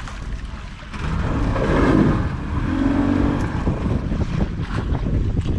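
Wind buffeting the microphone and sea water washing around a small outrigger fishing boat, with a steady low rumble. The noise swells about a second in, and a short low hum comes a little past the middle.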